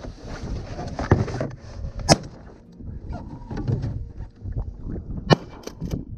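Sharp knocks and clatter of gear against the hull of a small skiff, over rustling and handling noise. The loudest knock comes about two seconds in, and a quick run of four knocks follows a little after five seconds.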